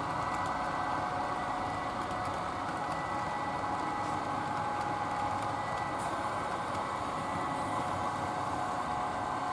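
HO scale model train running along the layout track: a steady running drone with a constant whine.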